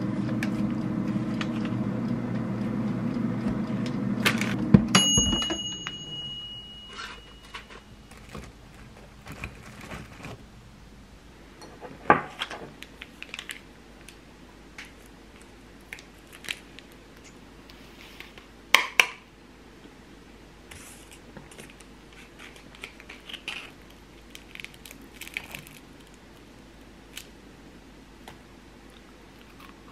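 A kitchen appliance hums steadily for about five seconds, stops with a knock and gives one long electronic beep. After that come scattered taps, clinks and soft tearing as pastries are picked up and pulled apart on a plate, with two sharper knocks along the way.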